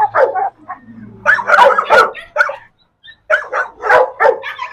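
Chained pit bull-type dogs barking at each other in quick runs of short, loud barks, several a second, with a brief break about three seconds in.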